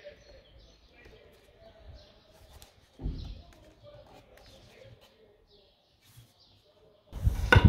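Birds chirping faintly in the background. There is a dull thump about three seconds in, and just before the end a loud, low rumbling noise starts up.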